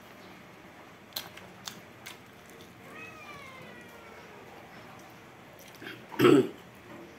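A few small mouth clicks from eating, a faint falling call around three seconds in, then one short, loud pitched call a little after six seconds.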